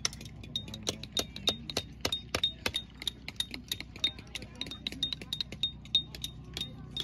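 Metal hand tools tapping and splitting stone slabs, several diggers at once: rapid, irregular sharp clinks, each with a brief high metallic ring.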